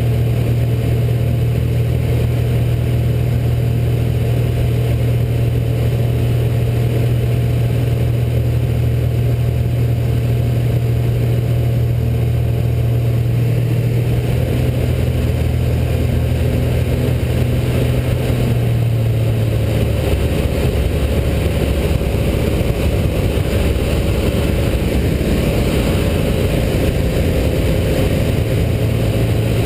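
Rotax 912 flat-four aircraft engine, fitted with an AeroInjector, running steadily in flight and heard from inside the cockpit along with the propeller and airflow. The engine note drops lower about two-thirds of the way through and rises back near the end.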